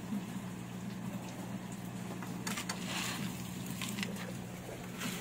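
A few light clicks and a short rustle from hands and a tool working at the mounting of a motorcycle's aftermarket exhaust canister, over a steady low hum.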